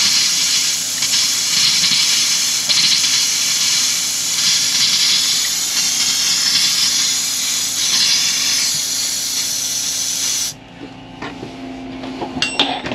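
Compressed air blowing out of an open bathroom faucet in an RV, a loud steady hiss with a spray of leftover water into a stainless steel sink: the water lines being purged with an air compressor for winterizing. The hiss cuts off suddenly about ten and a half seconds in, and a few light clicks follow near the end.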